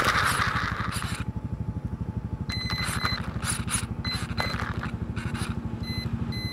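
WLToys 12428 RC truck driving on asphalt: its brushed electric motor and gears whine in surges as the throttle comes and goes, over a fast, steady buzzing rattle from the drivetrain and chassis.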